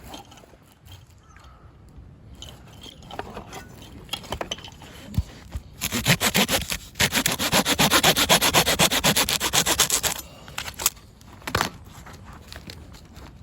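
Rapid scraping, about ten short strokes a second for some four seconds in the middle, with scattered knocks and rubbing before and after.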